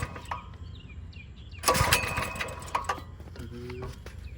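Recoil starter of a mini bike's small engine yanked once, about two seconds in, the pull cord whirring as the engine turns over; it does not fire and run, with the choke on and fresh fuel just added.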